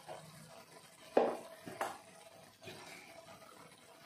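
Metal kitchen utensils and spice containers clinking: three short clinks, the loudest about a second in and two more within the next second and a half.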